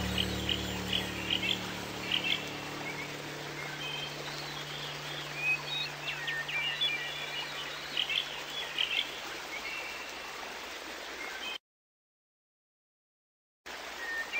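Chirping and croaking animal calls from a nature-sound soundtrack, with the tail of a soft music track fading out in the first few seconds. The sound cuts out completely for about two seconds near the end, then the chirping resumes.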